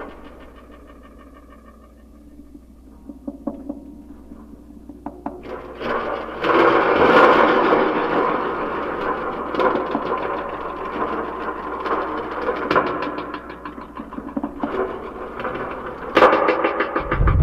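Live experimental noise-music texture: sparse soft clicks at first, then about six seconds in a dense crackling, rumbling noise swells up and carries on, shot through with sharp clicks.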